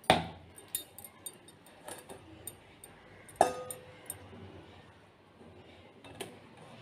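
Flour being sifted through a metal sieve, with a few scattered clinks and knocks of metal against the bowl; the one about three and a half seconds in rings briefly.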